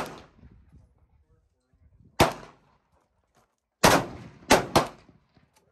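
Rifle shots from several shooters on a firing line: one report at the start, another about two seconds in, then three in quick succession around four seconds in.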